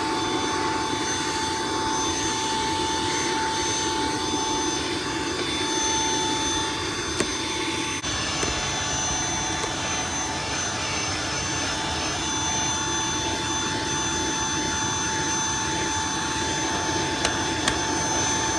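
Xiaomi Mi Vacuum Cleaner Lite 2 cordless stick vacuum running steadily, its motor giving a high, even whine over a rush of air as it vacuums up dust, with a couple of faint knocks of the nozzle.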